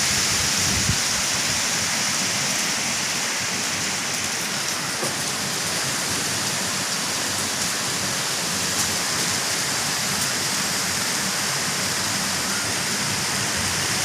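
Strong wind of a windstorm blowing hard and without letup, a dense rushing hiss.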